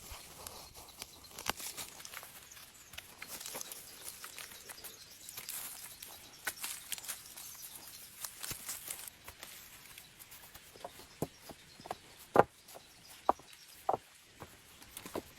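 Rustling and crackling in dry leaves and twigs on a forest floor for the first half, then scattered sharp snaps or knocks, the loudest about twelve seconds in.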